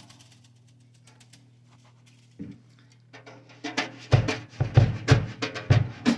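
A drum-kit beat stops, leaving a quiet low hum with faint clicks and one soft thump, then the drums come back in with strong hits just under four seconds in.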